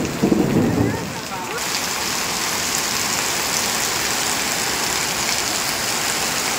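Heavy rain pouring down and splashing on a wet paved street: a steady hiss, which becomes denser and brighter about a second and a half in. A brief loud low noise stands out in the first second.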